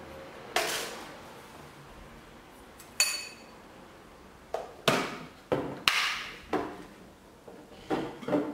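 A metal spoon clinking against a small glass bowl while sugar is measured out, and jars and a bottle knocked down on a countertop. There are about ten separate sharp knocks and clinks, most of them in the second half; the one about three seconds in rings briefly.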